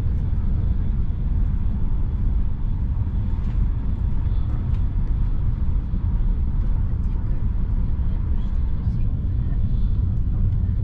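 Steady low rumble of a passenger train carriage's interior, with a few faint ticks.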